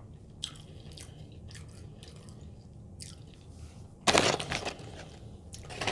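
A person chewing a bite of a fried chicken sandwich close to the microphone, with small scattered mouth clicks and a louder crunchy noise lasting about half a second, roughly four seconds in.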